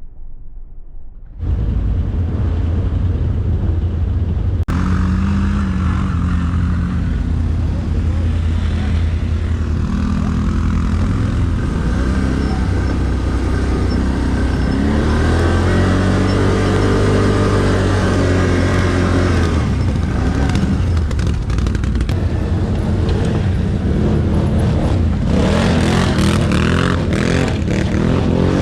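ATV engine running under way, its pitch rising and falling as the throttle opens and closes. It starts suddenly about a second and a half in.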